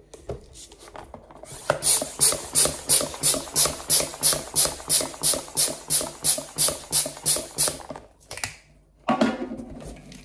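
A hand balloon pump is worked in quick strokes, each stroke a hiss of air pushed into the balloon, about three a second for some six seconds before stopping. Near the end comes a short rubbing sound as the balloon is handled.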